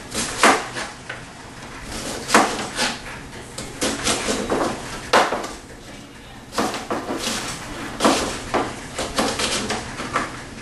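Chef's knife coarsely chopping a yellow onion on a plastic cutting board: a run of irregular sharp knocks of the blade on the board, pausing for about a second near the middle.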